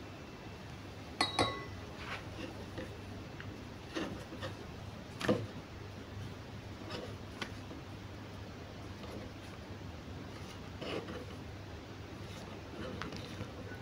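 Soft rubbing and light taps of hands lifting and folding a thin sheet of oiled dough on a wooden chopping board, with a sharp clink and brief ring about a second in and a few louder knocks.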